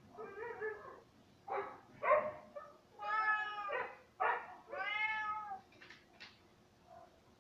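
A cat meowing several times in a row, with two longer drawn-out meows in the middle that rise and fall in pitch.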